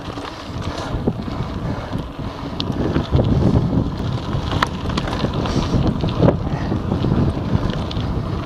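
Wind buffeting the microphone over the rumble and crunch of knobby tyres rolling fast on a gravel trail, from a Giant Anthem 2 27.5 cross-country mountain bike, with scattered sharp clicks and rattles. Louder from about three seconds in.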